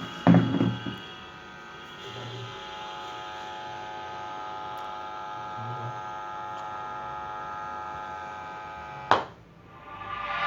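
Steady mains hum from an amplifier board fed by a 12-volt transformer, coming through its woofers with no signal playing. There is a thump in the first second, and a sharp click about nine seconds in, after which the hum cuts out.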